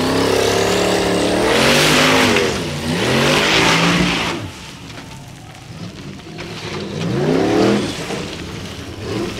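Formula Offroad hill-climb buggy's high-powered engine revving hard, its pitch surging up and down again and again as the car claws up a steep loose slope on paddle tyres. From about one and a half to four seconds in, a loud rushing hiss of spinning tyres spraying dirt joins it. The engine drops back for a few seconds, then revs up again near the end.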